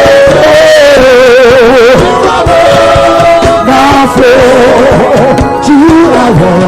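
Gospel praise and worship music: a singer holding long notes with wide vibrato over a band with a steady drum beat.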